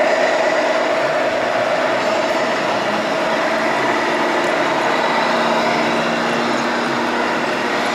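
Radio-controlled scale trucks driving by with a steady running sound and a held tone; a lower tone joins about three seconds in and fades near the end.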